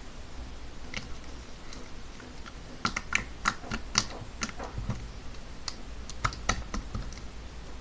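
Hands handling slime and its container: a run of irregular sharp clicks and taps, bunched together from about three to seven seconds in.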